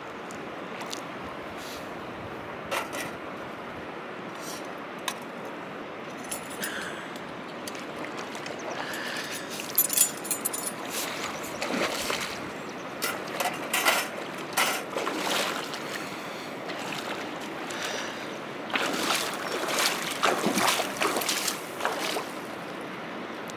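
Shallow river flowing steadily, with feet wading and splashing through the water; the splashes come in irregular bunches through the second half.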